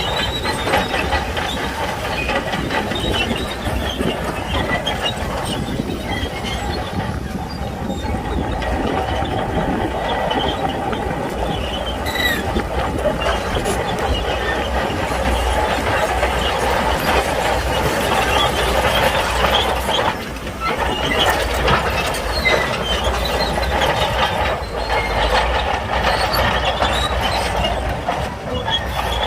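Shantui crawler bulldozer working, its diesel engine running under load with a steady low rumble while the steel tracks keep squealing and clanking.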